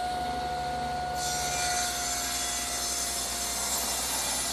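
Table saw running at full speed with a steady whine, then about a second in the blade starts cutting into a thick ash board, ripping a 12.5-degree bevel along its edge with a harsh, continuous cutting noise over the whine.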